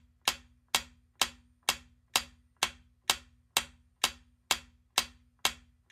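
Clock-like ticking sound effect counting down a quiz answer timer, a steady run of sharp ticks about two a second.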